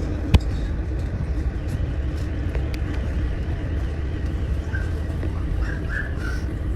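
Steady low rumble of a ferry's engines and machinery with a constant hum, broken by one sharp click shortly after the start and a few faint short chirps later on.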